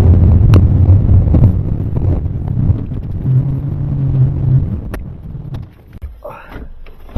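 Motor vehicle engine running with a low rumble. A steadier hum holds for about a second midway, then the sound fades away about six seconds in.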